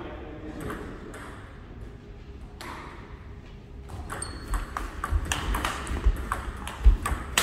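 Table tennis rally: the ball clicking back and forth off the paddles and the table, starting about halfway through and getting quicker and louder, with low thuds underneath.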